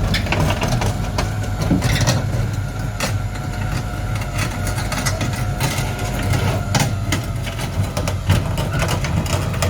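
Tow truck's engine running steadily while the stripped car shell is dragged up onto the truck, with irregular metal clanks and knocks throughout.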